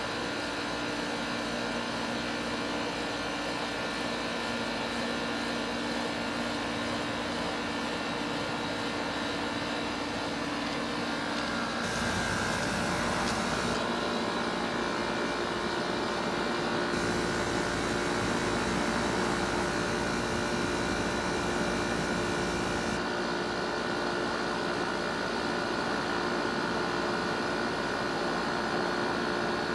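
A 2013 Carrier Comfort Series heat pump's outdoor unit running through a defrost cycle: a steady compressor hum with several held tones. About twelve seconds in the sound shifts, with a brief rush of hiss, a new higher whine and more low rumble.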